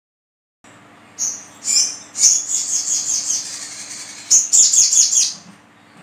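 Olive-backed sunbird song: two short high chirps, then a quick run of high twittering chirps and trills for about two seconds, a brief pause, and another rapid burst of chirps near the end, over a faint steady hum.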